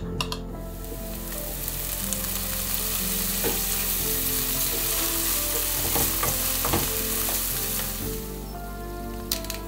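Capers, chopped red chilli and garlic sizzling in hot oil in a pan: a dense, steady frying hiss with scattered sharp pops. It starts about half a second in and fades away near the end.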